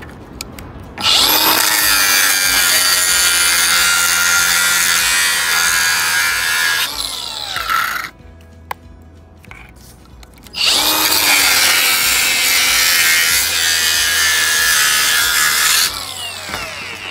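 Angle grinder cutting through a clear plastic sheet, run twice: each time it spins up about a second or ten seconds in, cuts steadily for five to six seconds, then winds down with a falling whine.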